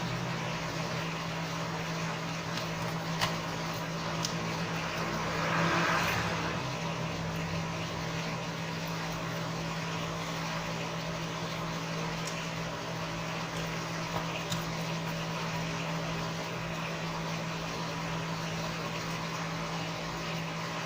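A steady low hum and background room noise, with a few faint light clicks of small tools working on a smartphone's screws and parts. A brief rush of noise comes about six seconds in.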